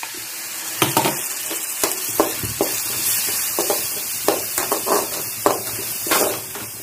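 Ground coconut masala sizzling in hot oil in a kadai after a splash of water, while a slotted metal spoon stirs it, scraping and knocking against the pan a dozen or so times. The steady sizzle is the added water being cooked off.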